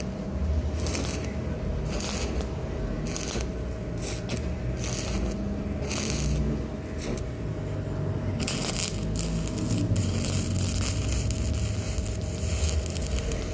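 Electric arc welding crackling in a string of short runs that start and stop over and over, as weld is laid to fill in a joint.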